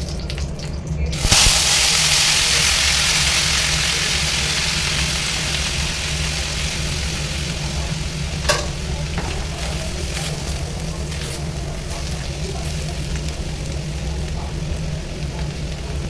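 Frying in a hot pan: about a second in, food goes into hot fat with a sudden loud sizzle that slowly dies down. A single sharp knock comes partway through, over a steady low hum.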